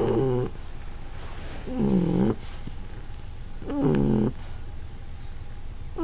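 Shar Pei snoring in its sleep: short, pitched snores, each about half a second long, coming regularly about every two seconds.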